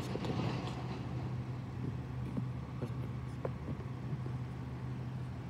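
Recycling truck's engine running steadily, heard as a low even hum, with a few faint knocks partway through.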